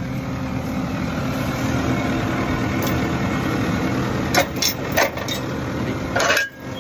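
Case IH Farmall 100C tractor's diesel engine idling steadily, with a few sharp knocks about two thirds of the way in and again near the end.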